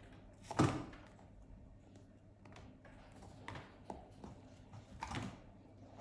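Scuffs and knocks on a wooden desk as a cat paws at a cloth mouse pad; the loudest knock comes about half a second in, with a few softer ones later on.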